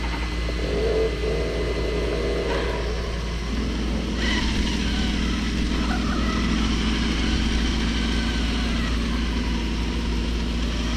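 Radio-controlled crawler trucks driving over dirt: electric motor and gearbox whine that wavers in pitch with the throttle over a steady low rumble, getting somewhat louder a few seconds in.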